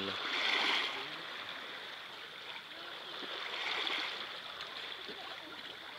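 Shallow seawater washing and trickling over pebbles at the shoreline: a steady rushing that swells a little louder about half a second in and again around four seconds.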